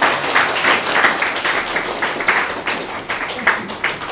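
An audience applauding: many hands clapping in a dense, irregular patter that thins toward the end.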